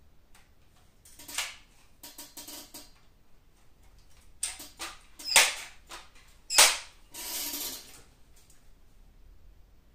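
Multi-pump pneumatic air rifle being handled and shot at a paper target in a pellet trap. A few light mechanical clicks come first, then two sharp cracks about a second apart, the loudest sounds here, followed by a noisier sound lasting just under a second.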